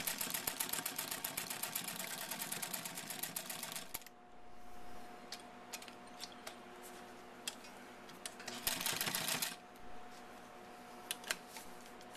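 1951 New Home model NLB rotary sewing machine stitching through six layers of denim: a fast, even run of needle strokes that stops about four seconds in. After a pause with a few scattered clicks comes a second short burst of stitching, then more single clicks.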